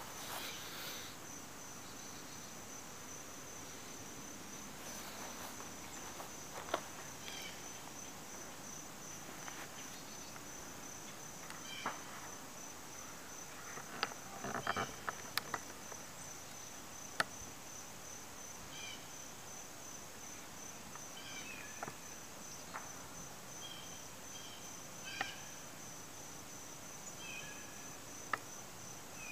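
High-pitched insect chirping in a steady, even pulse, with scattered faint clicks.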